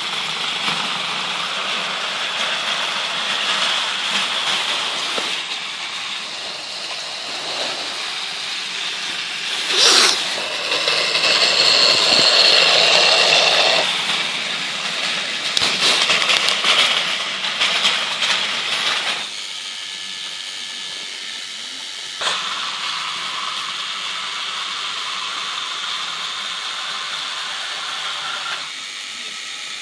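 Battery-powered toy trains running on plastic track: a steady whir of small motors and rattle of wheels over the track. It grows louder about ten seconds in, with a sharp knock and then a run of clicks, and drops to a quieter whir after about twenty seconds, with one more click shortly after.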